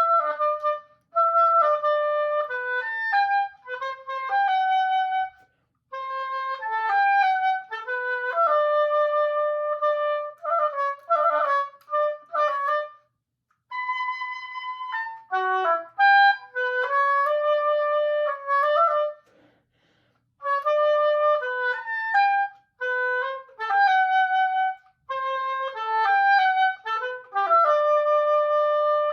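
Solo oboe playing a melodic passage of separate notes in short phrases, with brief breaks for breath between them.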